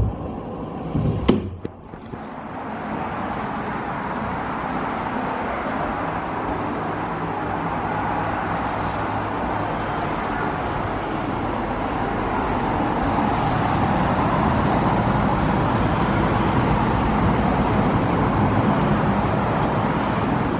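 Steady road traffic noise that swells louder in the second half, with a sharp knock about a second in.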